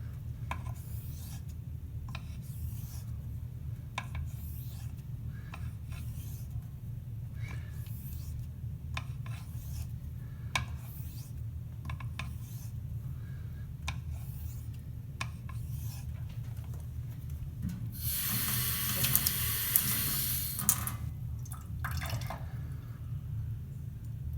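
Koraat straight razor being honed on a 5,000-grit whetstone, a short scraping swish with each stroke, about one a second, rebuilding an edge that was deliberately dulled. Near the end a louder hiss lasts about three seconds.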